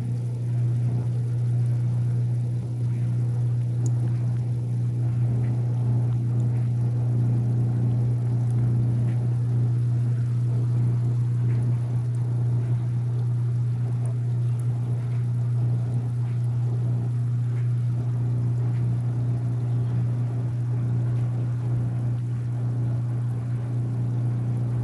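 Steady low hum of a small pond water pump, with water bubbling lightly over it.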